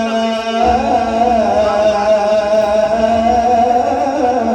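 Male Quran reciter holding one long, ornamented note in melodic maqam-style recitation, its pitch wavering slightly, over a steady low drone.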